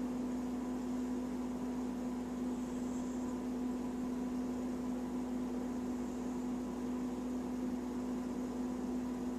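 A steady low hum, one constant tone over a faint hiss, unchanging throughout.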